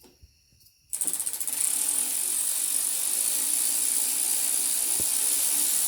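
Ratchet wrench clicking very fast and without a break, backing out a handlebar bolt; it starts about a second in.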